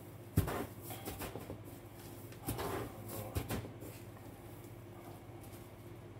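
Hands coating an egg-dipped piece of food in breadcrumbs in a plastic tub: soft rustling and crunching of the crumbs, with three sudden knocks. A low steady hum runs underneath.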